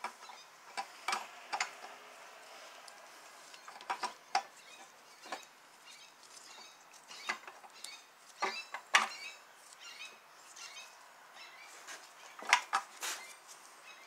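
Irregular metallic clicks and clinks of the Toyota 2AZ-FE engine's balance shaft gears and metal parts being turned and set against the engine block by hand, gear teeth knocking as they mesh. The sharpest knocks come about two thirds of the way in and again near the end.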